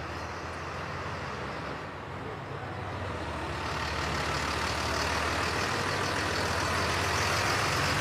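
Truck engine running as a box truck approaches, its sound growing gradually louder through the second half.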